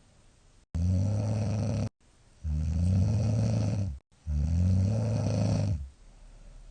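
A young woman snoring: three loud, deep snores of about a second and a half each, close together, like a ground rumble. The uploader puts the heavier snoring down to rice-pollen season and to not wearing her mouthpiece lately.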